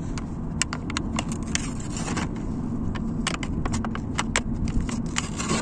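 Packaging and a small product handled up close: irregular crinkles and sharp clicks as it is unwrapped and turned in the hands, over a steady low hum.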